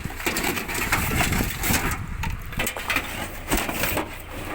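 Rummaging through a discarded computer box and its loose parts: irregular rustling and scraping with several sharp knocks, over a steady low rumble.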